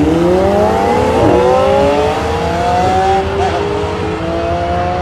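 Ferrari F50's V12 accelerating hard from a standing start, its pitch climbing through the gears with upshifts about a second in and again around three seconds in, then slowly growing fainter as the car pulls away.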